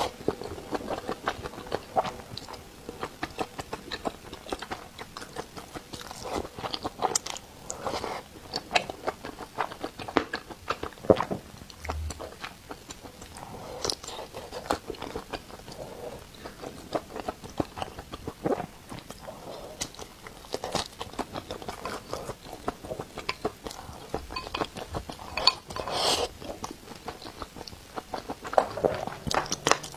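A person biting and chewing mouthfuls of mala xiang guo (spicy stir-fried sausage, squid, tofu skin and greens) close to a clip-on microphone: a dense run of short, sharp mouth clicks and crunches, several a second.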